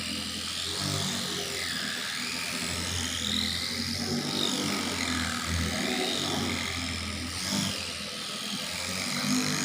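Low, steady buzz of a handheld electric vibrating massager, the 'dolpin' used in nerve-point massage, pausing briefly now and then, under background music.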